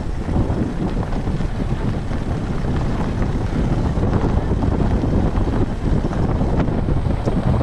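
Wind buffeting the microphone over a low, steady rumble of a moving vehicle.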